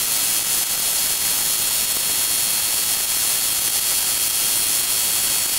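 A steady, even hiss of noise, strongest in the treble, with no engine hum or voice heard through it.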